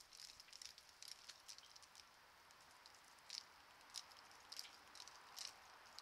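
Red-bellied woodpecker pecking at a seed tube feeder: faint, irregular light ticks, a few sharper ones in the second half, over a steady low hiss.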